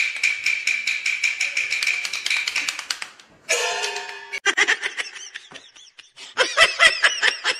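Rapid wooden taps, each with a short ringing note, speeding up and stopping about three seconds in. Then comes a pitched tone and a fast chattering burst of laughter toward the end.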